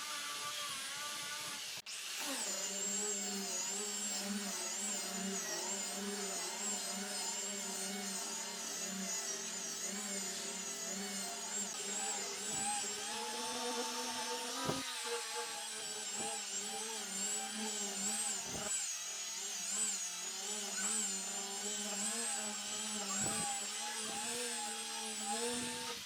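Electric power tool running continuously as it works wood, its motor whine wavering in pitch with the load. There is a sharp break about two seconds in, and the sound cuts off at the end.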